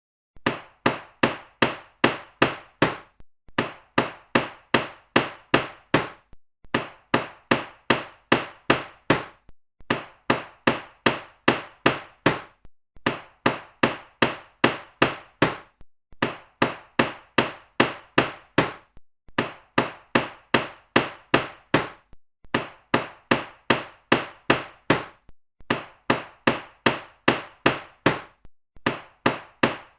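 Hammer blows: quick runs of about eight sharp strikes, roughly three a second, each run followed by a short pause and then repeated the same way, like a looped sound effect.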